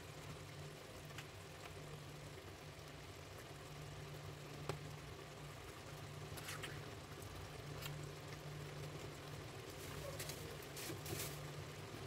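Faint sounds of thick cream being squeezed from a carton into a pan of curry on an induction hob. A low hum from the hob comes and goes in short pulses, over a few small crinkles and clicks of the carton that are most frequent near the end.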